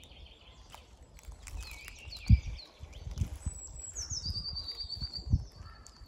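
Woodland birds singing and chirping, with one bird's fast trill a little after four seconds in. There are a few low thumps, the loudest about two seconds in.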